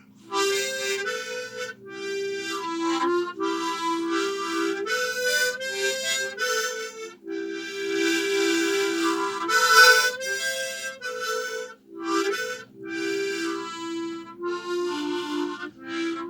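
Instrumental music: a melody of held notes with a reedy, many-overtoned sound, over a steady low drone, starting just after a brief pause.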